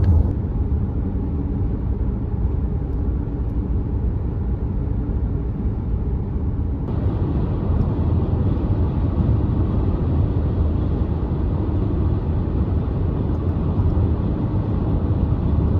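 Steady low rumble of vehicle road noise, with a slight change in its character about seven seconds in.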